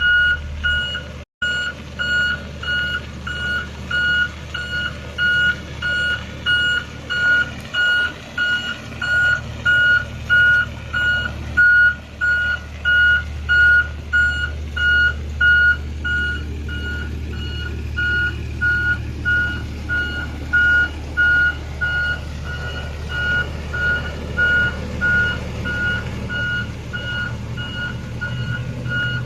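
Pneumatic-tyred road roller's back-up alarm beeping at a steady, even rate, over the low, steady running of its engine.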